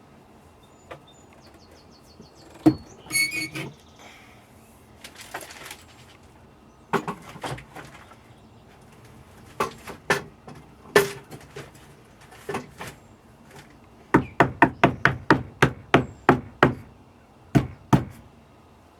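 Knocks on a wooden cabin panel being fitted into place. A few scattered knocks and clatter come first, then near the end a quick run of about a dozen knocks, about four or five a second.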